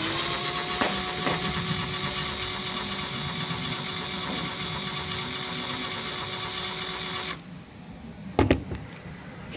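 A small motor runs with a steady, high whine, rising in pitch as it starts, then stops abruptly about seven seconds in. A few sharp knocks follow near the end.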